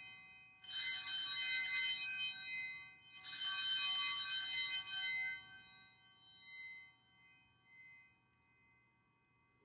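Altar bells rung twice, just under a second in and again about three seconds in. Each is a bright, jingling peal that dies away slowly. It marks the elevation of the chalice at the consecration.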